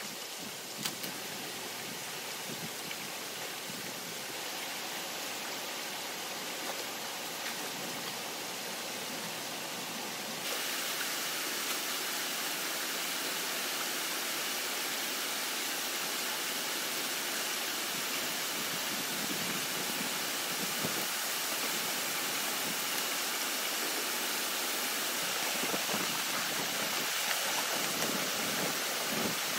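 Water rushing through a breach in a beaver dam as branches are pulled out, a steady rushing that grows louder as the gap opens and steps up sharply about ten seconds in. A couple of brief knocks near the start.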